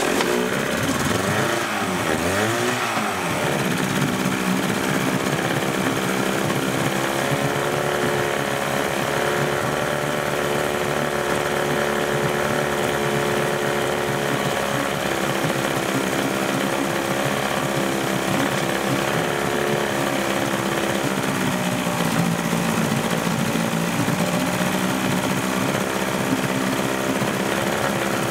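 Evinrude 35 hp two-stroke outboard running with its cowling off. It revs up and down a couple of times in the first few seconds, then settles into a steady fast idle, dipping briefly about three quarters of the way through. The owner suspects its bottom ignition coil of arcing.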